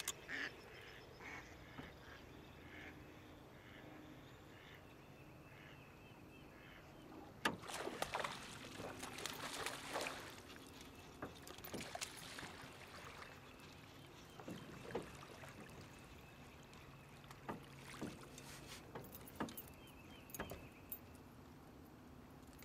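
A hooked bass being fought and landed from a small boat: water splashing and sharp knocks and clicks of rod, reel and hull, loudest in a cluster from about a third to just past halfway through, with a fishing reel being cranked.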